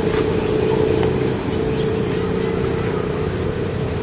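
Steady low motor drone, with a faint click just at the start.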